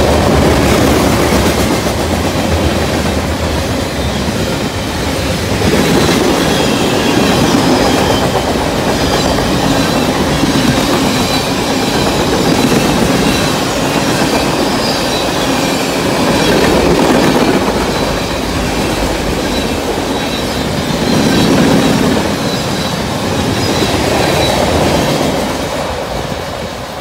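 Freight cars rolling past close by, covered hoppers and then tank cars, with a steady rumble and the clickety-clack of wheels over the rail joints, swelling as each group of wheels goes by. The sound fades near the end as the last car moves away.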